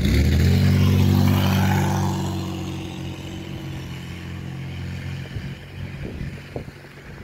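A car passing close by: the engine and tyre noise come up suddenly at the start and are loudest for about the first two seconds. The engine hum then fades away over the next few seconds.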